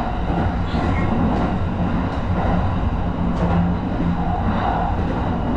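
Kintetsu 23000 series Ise-Shima Liner electric train running on the line, heard from the driver's cab: a steady rumble of wheels on rails with a steady hum and a few faint ticks.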